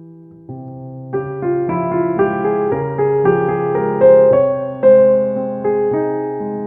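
Background piano music: a soft melody of single struck notes over sustained bass notes, growing fuller about a second in.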